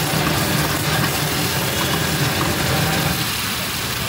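Chicken masala gravy cooking in a pan over a flame: a steady low rumble with the gravy sizzling and bubbling as it is stirred, thinning a little near the end.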